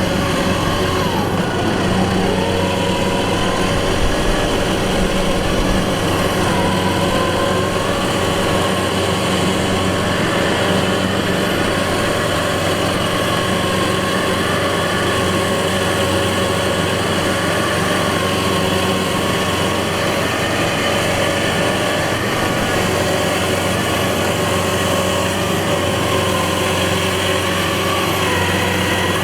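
A rice harvesting machine's engine running steadily, its pitch sagging briefly and recovering as it takes load, about a second in and again near the end.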